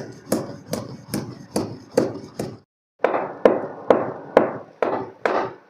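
A pestle pounding cloves, green cardamom and black peppercorns in a mortar, crushing them fine. The strokes are sharp and regular, about two and a half a second, with a short break about halfway through.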